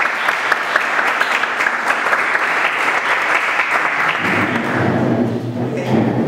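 Audience applauding, many hands clapping together; the applause dies away about four seconds in.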